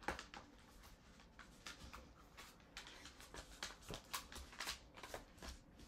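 Faint rustling and light scattered clicks of paper and a leather traveler's notebook cover being handled.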